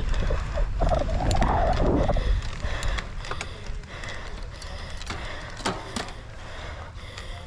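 Wind buffeting the microphone of a bicycle rider on the move, loud for the first two seconds and then quieter, with the bike rattling and clicking over rough ground throughout.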